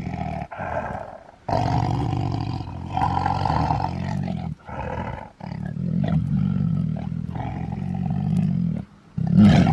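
Deep, rasping animal growls like a big cat's roar, in several stretches of a second or two broken by short pauses, loudest near the end.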